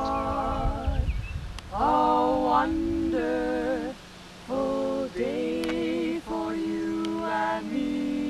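Three women's voices singing together a cappella in sustained phrases with short breaks between them, and a brief low rumble about a second in.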